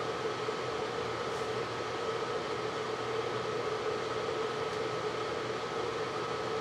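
Steady machine hum with an even hiss, like a small electric fan running, unchanged throughout.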